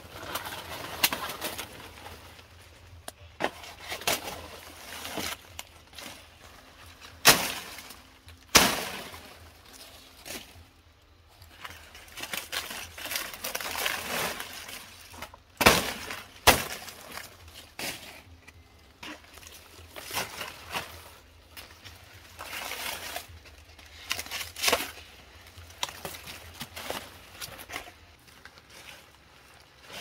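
Irregular sharp knocks and cracks, the loudest coming in two pairs about a quarter and about halfway through, with smaller clicks and rustling between.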